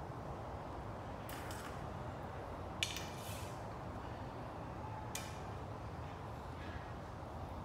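A few light clinks and clicks of arrow handling as the next arrow is taken and nocked on a recurve bow's string, the loudest about three seconds in, over a steady low background hum.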